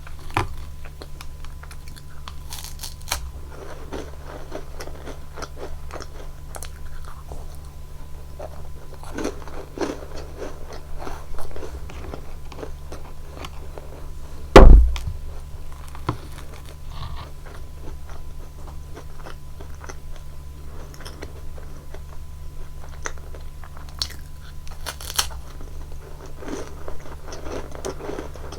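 Close-miked crunching and chewing of Nunettine flaky puff-pastry biscuits dipped in whipped cream: many short crisp bites and chews, with one loud thump about halfway through.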